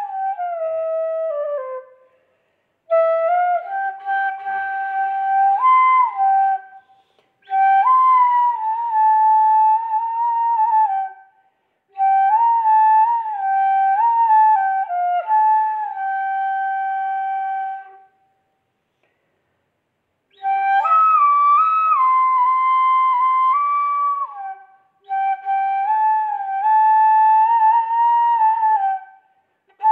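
Flute playing a slow melody of held notes and small steps, in phrases of a few seconds separated by brief silences; the first phrase ends with a falling run.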